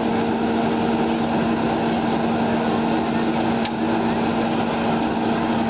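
Small engine of a hydraulic rescue-tool power unit running at a steady speed, a constant drone that drives the pump for the Hurst tools.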